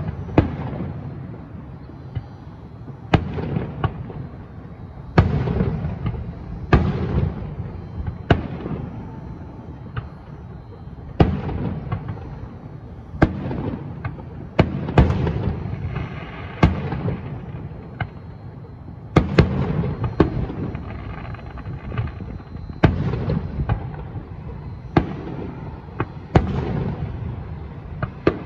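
Aerial fireworks shells bursting, a sharp bang every second or two, each trailing off in a low rumble.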